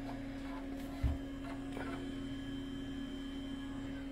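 A steady electrical hum holds one tone throughout, with a few faint clicks and a single soft low thump about a second in.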